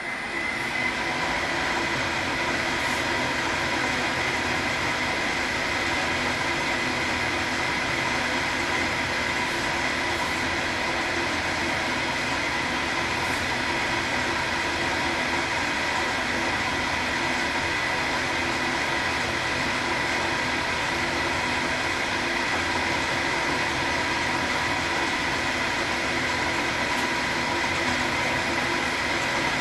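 1955 Schaublin SV-51 milling machine taking a cut across a vice bottom with an indexable-insert cutter: a steady machine whine over continuous cutting noise, heavier than the earlier light passes.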